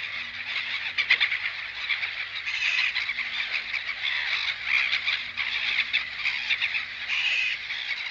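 Dense animal chorus of many rapid, overlapping croaking calls, with a faint steady low hum underneath.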